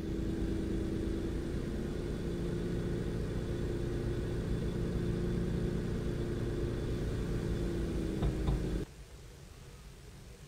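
Ship's diesel engine idling with a steady low hum and rumble. A couple of clicks come just before it cuts off abruptly about nine seconds in, leaving only a faint hiss.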